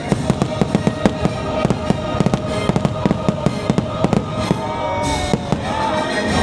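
Aerial fireworks crackling and popping in quick, uneven bursts over the show's orchestral music, with a few gliding whistles from about two-thirds of the way through.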